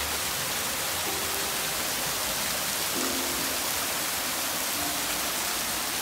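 Steady rush of running water, an even hiss that does not change, with a few soft held notes of background music over it.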